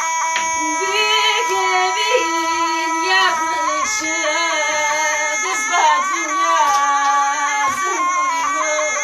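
Turkish folk music in the Sivas regional style: a singing voice carries an ornamented melody over sustained instrumental tones.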